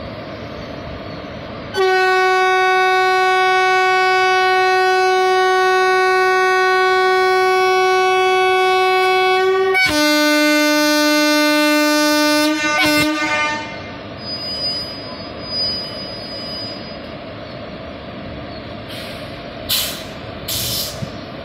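WAG-7 electric locomotive sounding its horn: one long steady high note for about eight seconds, then a lower note for about three seconds. After that the horn stops and the locomotive's steady running noise goes on, with two short hisses near the end.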